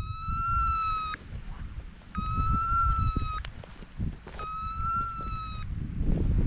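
Electronic beeper collar on an English pointer sounding three long electronic beeps, each about a second long and about two seconds apart. This steady repeating beep is the collar's point-mode signal that the dog is holding a point on partridges.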